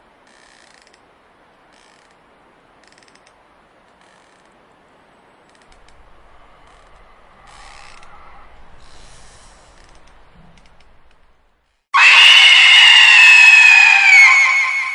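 Faint creaking, ratcheting horror ambience, then after a brief silence a loud, long scream starts near the end: the timer's screaming alarm going off at zero.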